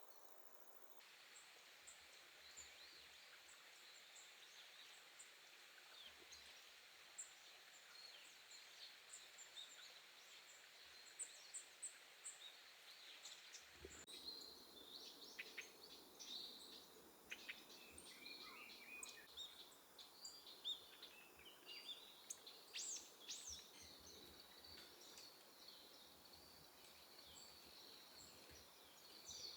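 Small wild songbirds calling: thin, high chirps and short call notes, sparse at first and much busier from about halfway, over faint outdoor hiss that changes abruptly about a second in and again near the middle.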